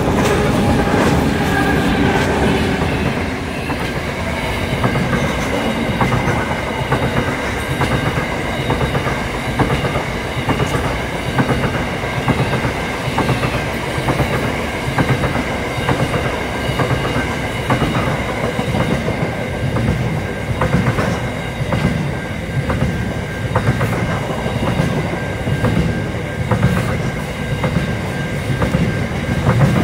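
Qube freight train passing close by. The lead RL-class diesel-electric locomotives' engines run as they go past in the first few seconds. Container wagons then roll by with a rhythmic clickety-clack of wheels over the rail joints, over a steady rumble and a faint high whine.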